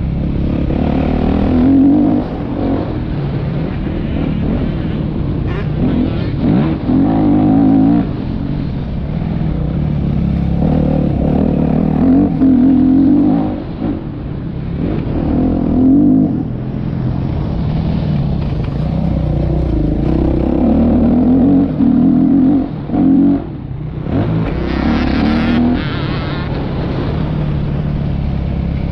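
Yamaha YZ motocross bike engine ridden hard, the revs climbing in repeated surges every few seconds and dropping away briefly as the throttle is shut and the gears change.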